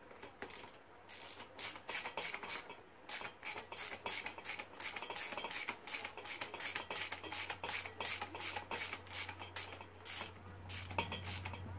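A wrench tightening a nut on a Honda CRF motocross fork: a quick, even run of short rubbing clicks, about four a second.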